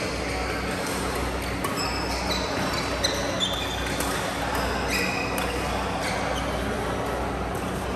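Badminton doubles rally: sharp racket hits on the shuttlecock at irregular intervals, mixed with short high squeaks of court shoes on the mat. Underneath runs a steady low hum.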